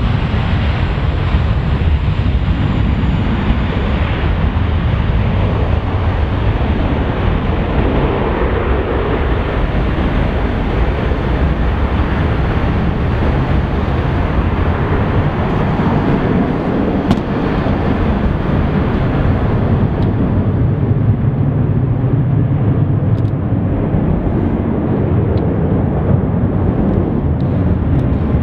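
Boeing 767 jet engines at takeoff thrust heard from a distance, a steady deep noise that gradually loses its higher hiss as the airliner rolls, lifts off and climbs away.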